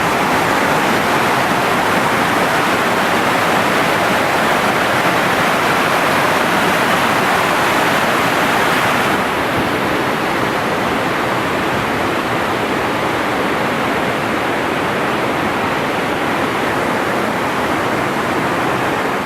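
Waterfall rushing in a loud, steady roar of falling water, turning a little duller and quieter about halfway through.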